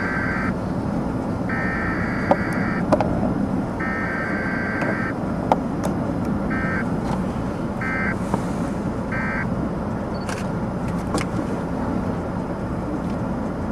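An electronic beeper sounding three long tones, then three shorter ones at a quicker, even pace, over steady low background noise, with a few faint clicks.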